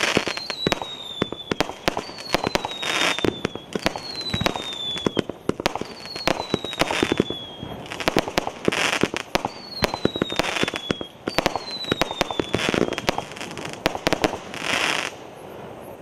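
Multi-shot fireworks cake firing in quick succession: sharp launch thumps and crackling bursts, with a whistle falling in pitch about every two seconds. The volley stops about a second before the end.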